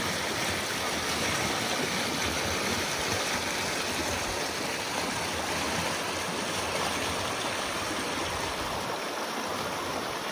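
Swollen, muddy creek rushing fast through a narrow channel: a steady, even rush of churning water.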